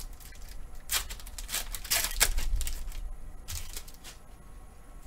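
Pokémon trading card booster pack being opened by hand: the foil wrapper rustling and the cards sliding out of it, in a few short bursts about one, two and three and a half seconds in.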